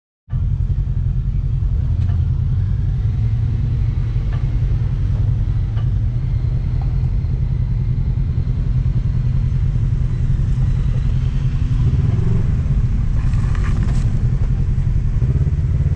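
Polaris 800 side-by-side's twin-cylinder engine running as the vehicle drives slowly along a rough dirt trail, a steady low rumble, with a few brief knocks and a short clatter about 13 to 14 seconds in.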